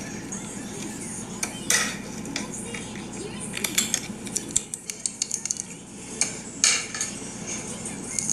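Fingers handling and pressing slime in small clear plastic tubs: scattered sharp clicks and sticky crackles, with a dense run of quick crackles around the middle and a louder pop about six and a half seconds in.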